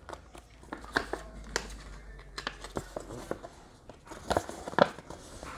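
Paper advertisement inserts and cardboard packaging being handled: scattered rustles with a few light clicks and taps.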